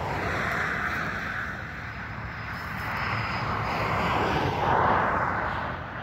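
Road traffic passing: a steady rushing noise with a low rumble, swelling as vehicles go by, loudest just before the end.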